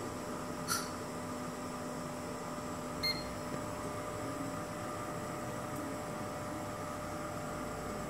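Zeiss Contura G2 coordinate measuring machine running a measuring cycle: a steady hum with several faint steady tones, a short sharp click about a second in and a brief high beep about three seconds in.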